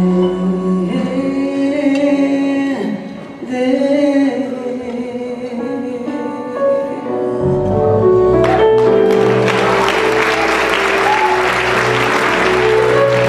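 Female vocalist singing with a live jazz band of electric bass, drums and keys. About eight seconds in, audience applause breaks out over a held chord from the band.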